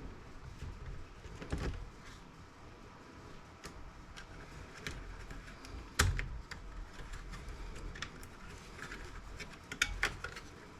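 Scattered light clicks and taps of plastic and metal laptop parts and a small screwdriver being handled during disassembly, with one louder knock about six seconds in and a few sharper clicks near the end.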